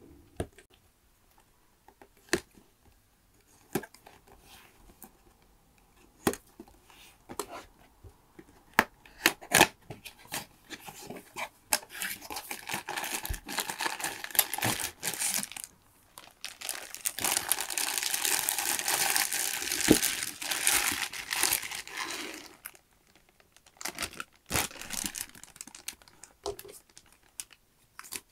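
A cardboard figure box being opened and unpacked by hand: scattered taps and scrapes of the cardboard flaps and insert, then long stretches of crinkling as the clear plastic bags holding the figure parts are handled, and more light taps near the end as the pieces are set down.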